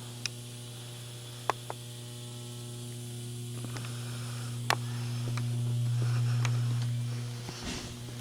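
A steady low electrical hum that swells about six seconds in and fades out near the end, with a few sharp clicks.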